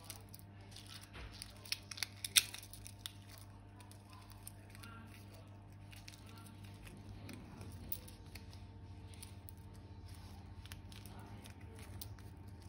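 Scissors snipping plastic a few times, the loudest snip about two seconds in, then scattered quieter clicks and handling over a faint steady low hum.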